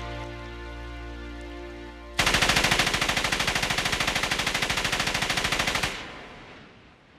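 Orchestral film music is cut off about two seconds in by automatic gunfire: one long, rapid, unbroken burst lasting about three and a half seconds. It then fades out in echo.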